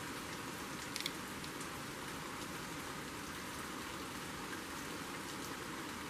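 Heavy rain pouring outside, heard through an open window: a steady hiss, with a faint click about a second in.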